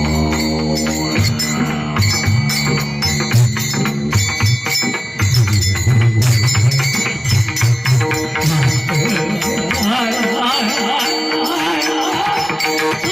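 Devotional kirtan music: small hand cymbals jingling in a steady rhythm over a drum and sustained melodic tones.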